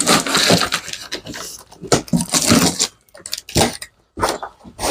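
Rustling, crackling and scraping of a cardboard package, its tape and packing being handled and pulled open, in irregular bursts with a couple of short pauses.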